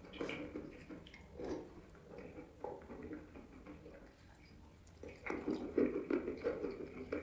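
Close-up chewing of eating chalk: irregular crunches and wet, squishy mouth sounds, growing denser and louder about five seconds in.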